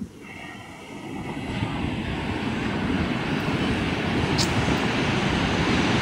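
Heavy sea surf: a large wave breaking and its whitewater rushing up the beach, a steady rushing noise that swells louder from about a second in.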